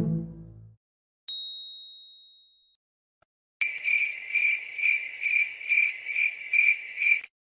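Added sound effects: a single bright ding that rings out and fades, then a high-pitched chirping that pulses about two or three times a second for nearly four seconds and cuts off suddenly.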